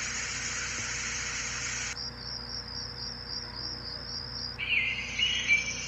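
White-noise sleep speaker playing its nature-sound tracks. A steady water-like hiss switches about two seconds in to the even pulsing chirp of crickets. Over the last second or so a louder, different chirping track takes over.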